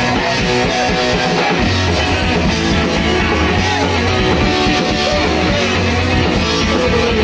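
Live rock band playing loudly: electric guitar and drums, with a deep bass tone coming in and holding from a couple of seconds in.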